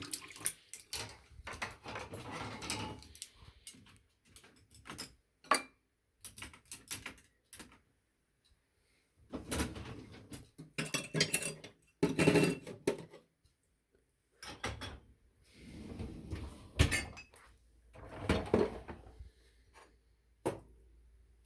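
Dishes and cutlery being handled in a kitchen: scattered sharp clinks and knocks of crockery and utensils, with a few longer stretches of clattering and rustling noise.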